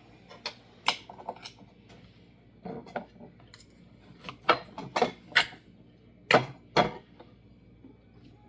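A series of sharp clinks and knocks of hard objects, like utensils or dishes being handled, with the loudest cluster from about four to seven seconds in.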